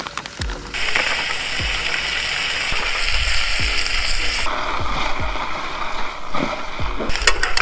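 Peppers and onions sizzling in olive oil in a pan, under background music with a deep, falling bass beat. The sizzle grows louder about a second in.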